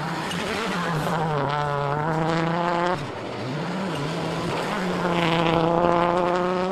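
Mitsubishi Lancer WRC05 rally car's turbocharged four-cylinder engine revving hard. The pitch climbs through a gear, drops sharply about three seconds in, then climbs again as the car comes past.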